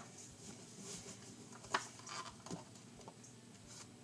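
Faint rustling and scratching with a few light taps as hands handle the lid of a Maruchan Instant Lunch noodle cup, covering it while the noodles steep.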